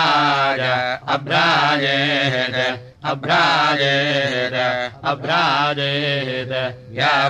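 Samaveda gana chanting in the Kauthuma tradition: a single voice sings long, sustained syllables whose pitch slides and wavers in melismatic turns. The phrases are broken by short pauses for breath every second or two.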